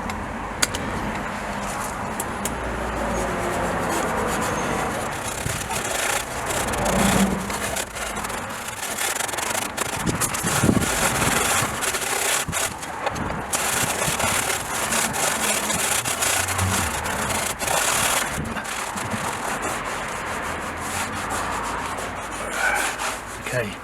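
Superfine steel wool scrubbed back and forth over a rusty chrome panel to rub off the surface rust: a continuous scratchy rubbing that swells and fades with the strokes.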